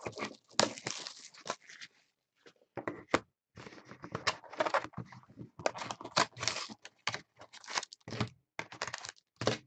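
Cardboard trading-card hobby box (2014-15 Panini Totally Certified basketball) being torn open and handled by hand: irregular ripping and rustling in short bursts.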